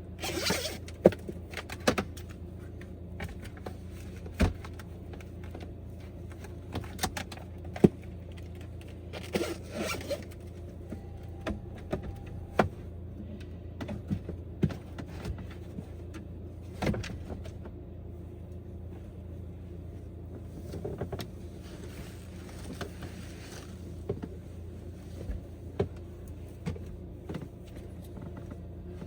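Scattered clicks, knocks and short rustles of things being handled inside a parked van, over a steady low hum.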